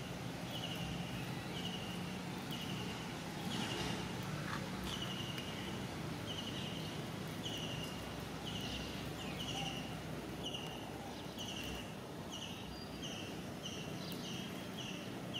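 An insect calling in a steady rhythm of short buzzy chirps, about one a second at first and quickening to nearly two a second toward the end, over a low steady hum.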